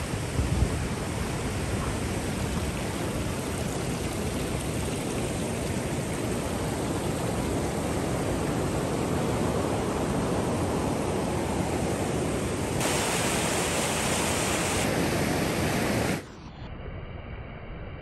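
River rapids rushing: a steady, even noise of whitewater pouring over rock ledges, with a short bump near the start. The rushing cuts off suddenly near the end, leaving a quieter hiss.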